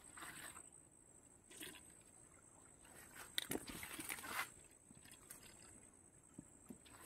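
Faint rustling and swishing of riverbank grass and leaves as a fishing line and a small hooked fish are pulled through them, with a few light clicks and knocks, busiest a little past the middle.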